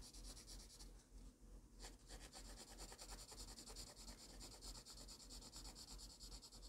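Faint scratching of a graphite pencil hatching on drawing paper. From about two seconds in it becomes a fast, even run of back-and-forth strokes as the pencil shades an area.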